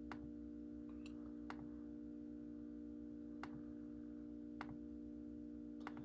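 Faint computer mouse clicks, about six at irregular spacing a second or so apart, over a steady low hum.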